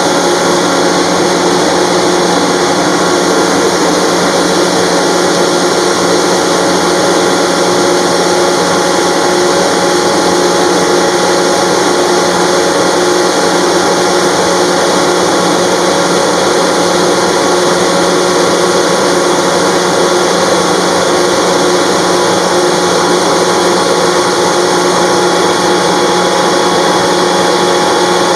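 50 HP Gardner Denver electric air compressor running steadily under power: a loud, even machine hum with several fixed tones over a dense rushing noise, unchanging throughout.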